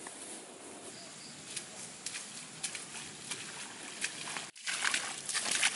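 Footsteps of several people walking through wet grass and mud, rustling and squelching irregularly. The sound drops out for a moment about four and a half seconds in, and the steps are louder and closer after it.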